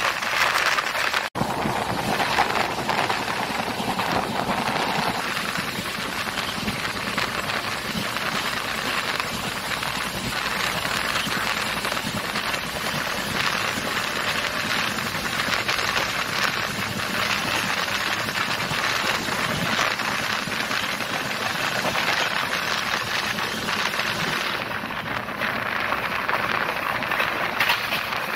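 Steady rushing noise of a passenger train running along the line, heard from on board. It cuts out for an instant about a second in.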